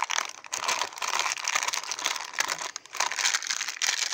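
A crinkly foil toy blind bag being torn open and handled: dense crackling and crinkling with sharp ticks and a few brief pauses.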